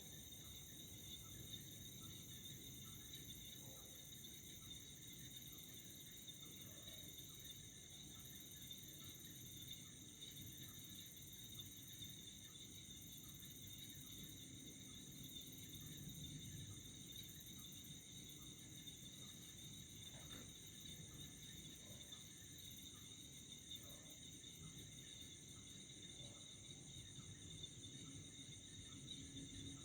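Crickets and other night insects trilling faintly and steadily, several high-pitched calls overlapping without a break, over a low background hum.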